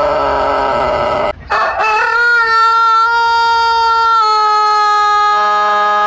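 Rooster crowing: a wavering crow ends just over a second in, then after a brief gap a long, steady, held call starts and carries on.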